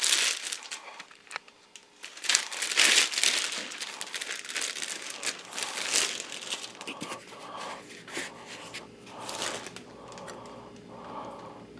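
Packaging crinkling in irregular bursts as parts are unwrapped, loudest about three seconds in, then softer handling noise in the second half.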